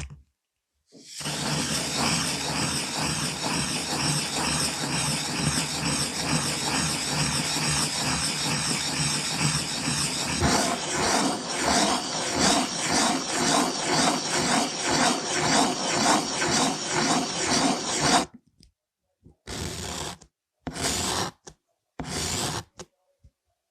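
Pencil scratching on paper in continuous strokes, which become a more distinct back-and-forth rhythm about ten seconds in. It stops abruptly after about eighteen seconds, followed by three short strokes.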